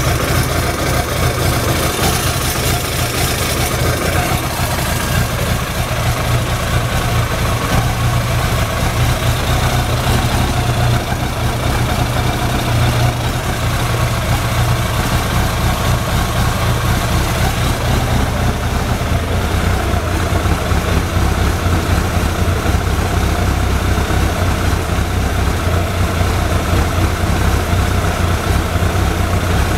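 Suzuki GSX-R1100's oil-cooled inline-four engine idling steadily at about 1,000 rpm in neutral.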